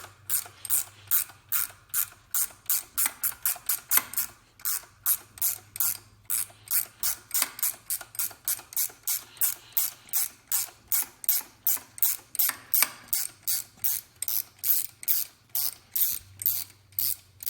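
13 mm ratcheting wrench clicking steadily, about three clicks a second, as it backs out a long alternator mounting bolt.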